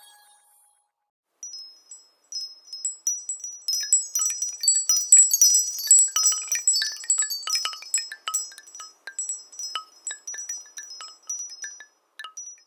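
Wind-chime ringtone of a MigeMax Ck22 Android phone: many high, tinkling chime notes struck at uneven intervals, starting about a second and a half in, thickest in the middle and thinning out before they stop.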